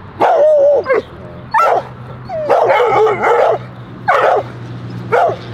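A dog barking in a run of about five barks, two of them long and drawn out; its owner says it is barking out of fear, not aggression.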